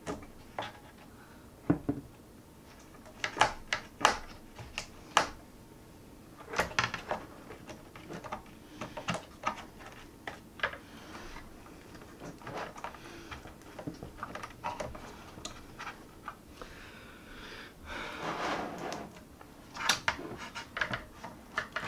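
Irregular clicks, taps and knocks of hands handling the logic board and hard drive inside an opened iMac's aluminium housing, with a rubbing, scraping stretch of about a second and a half about three-quarters of the way through.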